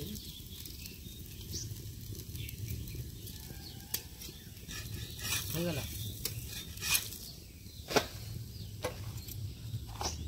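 Onion chakuli sizzling faintly on an iron tawa over a wood fire, while a metal spatula scrapes and clicks against the pan to loosen and lift the pancake; several sharp clicks fall in the second half.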